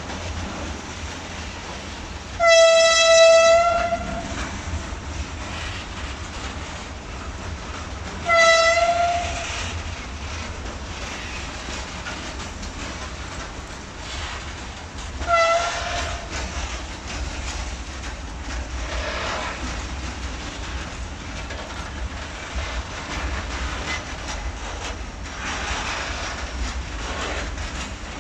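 Freight train of grain hopper wagons rolling past, a steady rumble with wheel clatter. A train horn sounds three times over it: a long blast about two and a half seconds in, a shorter one near eight seconds, and a brief one near fifteen seconds.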